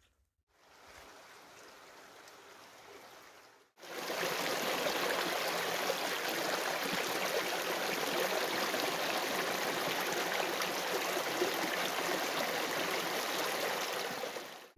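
Shallow mountain stream running over rocks, a steady rush of water. It is faint for the first few seconds, much louder from about four seconds in, and cuts off suddenly near the end.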